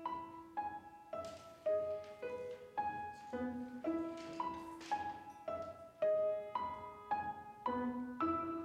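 Solo piano playing a slow, simple melody of single notes, about two a second.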